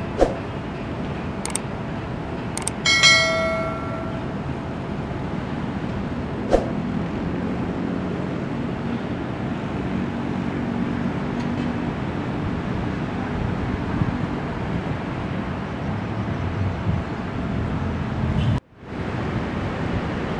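Steady city traffic noise heard from high above the streets: a continuous low rumble of road traffic. A few sharp clicks come in the first few seconds, a short ringing tone about three seconds in, and the sound cuts out briefly near the end.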